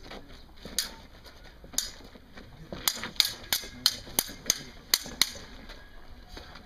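Steel sabres clashing in a fencing bout: two single ringing clangs about a second apart, then a fast run of about eight clashes, roughly three a second, then a short lull near the end.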